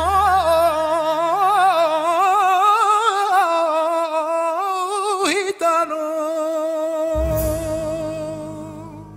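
Male copla singer holding the song's final melismatic note, with a wide vibrato and ornamented turns over low instrumental accompaniment. The note breaks briefly about five seconds in, then a last long note is held over a low chord, and the music fades out near the end.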